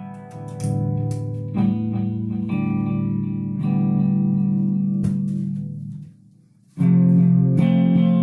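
Guitar chords ringing out and changing about every second. The sound dies away briefly near the end, then comes back louder on a new chord.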